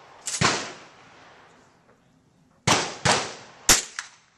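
Gunshots on a shooting range: one sharp shot about half a second in, then three shots in quick succession near the end, followed by a lighter crack.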